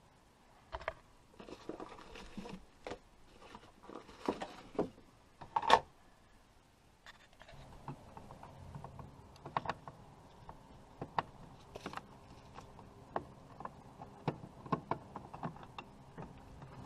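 Handling noise: scattered small clicks, taps and rustles of a hand working among wires and parts, with a sharp knock about six seconds in. From about seven seconds a low steady hum sits under quicker, lighter clicks.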